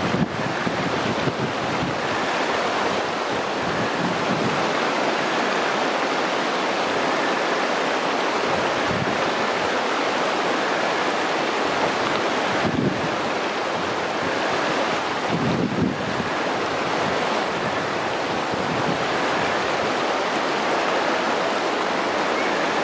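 Shallow river running over a stony bed, a steady rush of water. Twice in the second half, a brief low buffet of wind hits the microphone.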